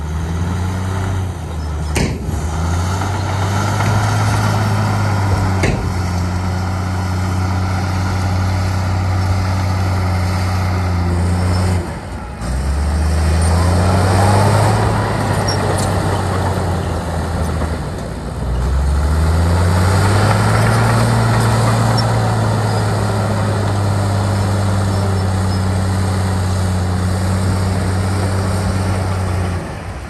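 Heavy diesel engine of earthmoving machinery running hard under load. Its low note drops and then climbs back twice as the load changes, and there are two sharp knocks in the first six seconds.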